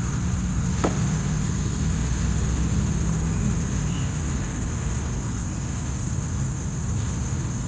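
Toy off-road car's small electric motor running steadily, with a single click about a second in.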